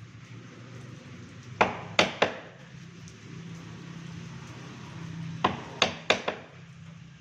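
Hammer blows striking wood in two quick groups, three and then four sharp knocks, as part of fitting a hinge to a door.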